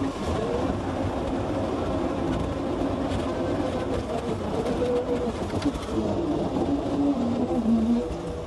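Heavy diesel earth-moving machine running steadily, its engine note wavering up and down in pitch as it works.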